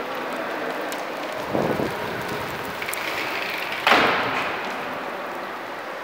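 Heavy rain and hail falling: a steady hiss with scattered sharp ticks. A louder rush comes about a second and a half in, and a sudden, louder burst just before four seconds that fades over about a second.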